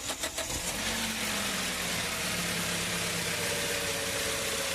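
Toyota Hiace van engine catching after a brief crank, its speed easing down about a second in and settling into a steady idle with its newly replaced water pump fitted.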